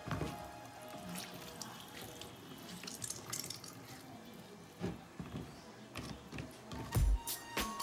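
Water dripping and trickling into a plastic colander as handfuls of cassava leaves are squeezed out by hand, with small wet squelches and splashes.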